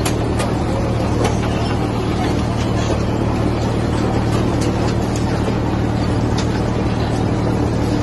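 Potato harvester running in the field with the tractor pulling it: a steady mechanical drone with a low hum, and a few sharp clicks and knocks as potatoes tumble over the rollers and conveyors.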